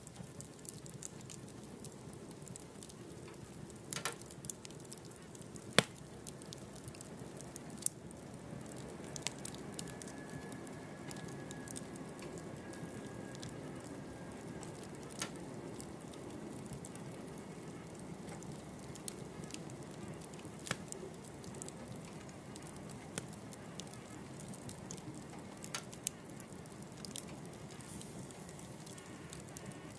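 Wood fire burning in a wood stove: a steady low flame rustle with scattered crackles and sharp pops, the loudest pop about six seconds in.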